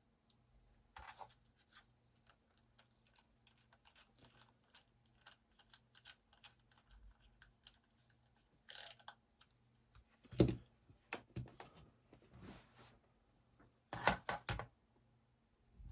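Scattered light clicks and taps of small laptop parts and screws being handled and fitted back together, with a few louder clicks about ten seconds in and near the end.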